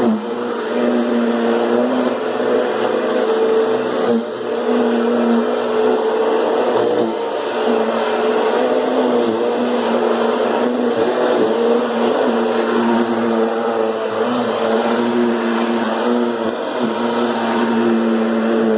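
Kirby G10 Sentria upright vacuum cleaner running loud and steady, its motor hum wavering slightly in pitch over a rushing hiss of air.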